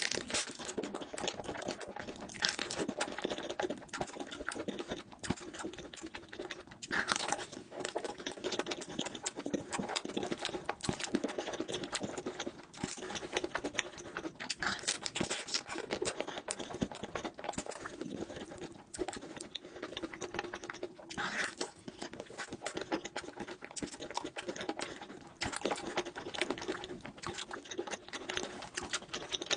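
Close-miked wet chewing and mouth smacking: a continuous run of small sticky clicks from someone eating cheesecake with cream.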